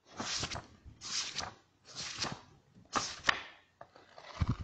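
Title-animation sound effects: four short swishes about a second apart, each with a few sharp clicks in it, then a low thud near the end.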